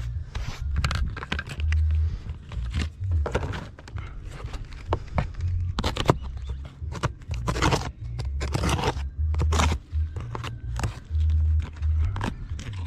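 Irregular scraping and crunching strokes, with an uneven low rumble underneath.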